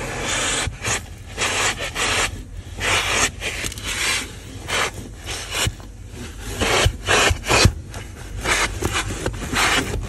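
Vacuum cleaner running while its plastic nozzle is scrubbed back and forth over car carpet, a scraping hiss that swells with each quick, uneven stroke over a steady low motor hum.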